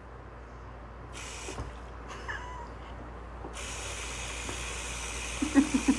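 A cat vocalizing, with a few short, loud calls near the end over a steady background hiss.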